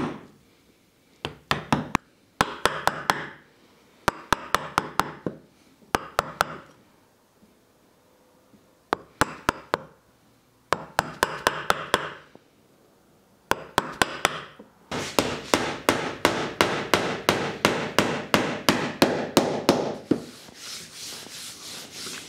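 Mallet blows driving a chisel into a pine workbench top to chop out a recess, in short bursts of several sharp knocks. About fifteen seconds in comes a fast, even run of taps, about six a second, as the toothed planing-stop block is hammered down into the recess.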